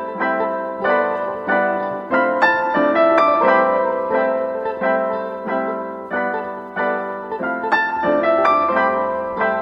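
Background piano music: a steady stream of struck notes, about two or three a second, each ringing and fading.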